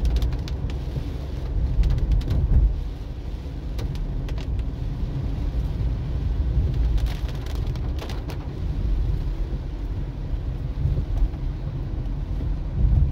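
Inside a Suzuki Swift driving on a rain-soaked road: a steady low rumble of engine and tyres with the hiss of wet tarmac, and a few short clicks scattered through it.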